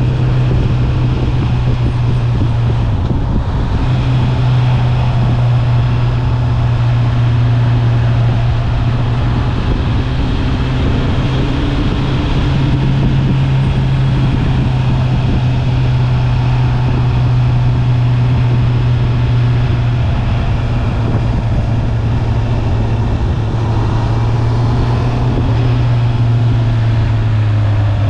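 Stock 2020 Honda CB650R inline-four engine and exhaust running steadily under way at near-constant revs, heard from the rider's position, with a brief change in engine note about three seconds in and again near the end.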